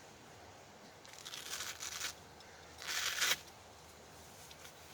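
Knee brace being unstrapped and pulled off: two rasping, tearing sounds of the straps coming open, one about a second in and a shorter one about three seconds in.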